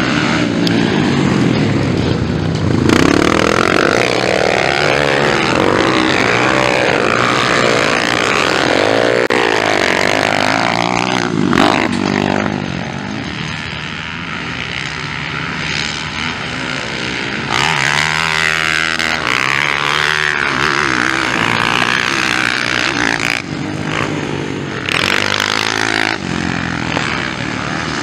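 Motocross bike engines revving hard and falling back over and over as the riders accelerate, shift and brake around the track. The pitch keeps rising and dropping, and it eases off a little in the middle.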